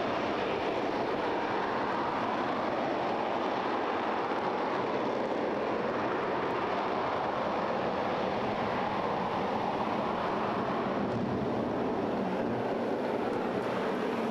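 RS-25 liquid-hydrogen/liquid-oxygen rocket engine firing in a static test: a steady, unbroken rushing noise that holds the same level throughout.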